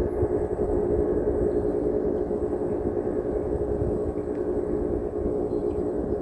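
An engine running steadily as an even, unbroken drone, over a low rumble.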